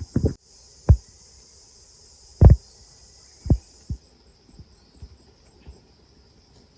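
Dull low thumps at irregular intervals, about five, the loudest about halfway through, over a steady high drone of insects that drops away partway through.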